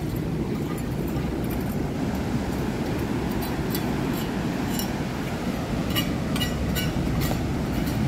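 Steady low rumble of ocean surf breaking on a beach, with a few light clicks from about three to seven seconds in.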